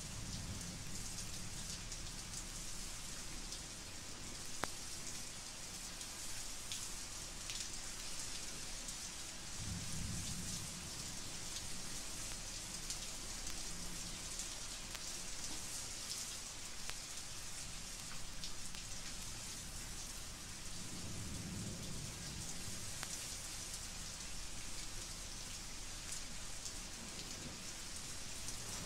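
Steady rain from a 1950s thunderstorm field recording, played back from a vinyl record. Low rumbles of distant thunder swell about ten seconds in and again a little past twenty seconds, and there is a single sharp click about five seconds in.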